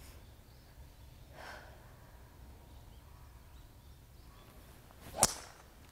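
A golf club swung with a short swish and striking the ball with one sharp impact about five seconds in, after quiet open-air background.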